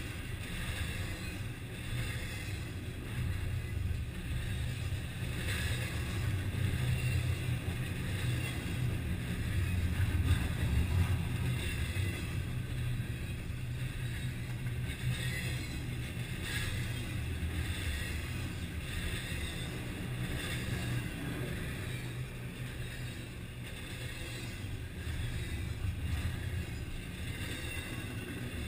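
Double-stack intermodal container train rolling past on steel well cars: a steady low rumble of wheels on rail, swelling a little about ten seconds in.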